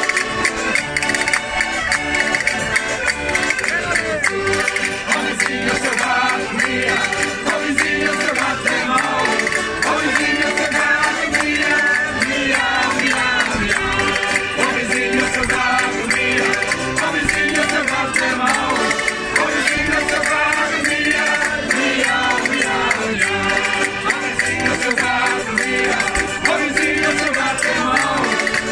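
Portuguese folk group performing live: voices singing over instrumental accompaniment, with a wooden scraper and hand percussion keeping the beat.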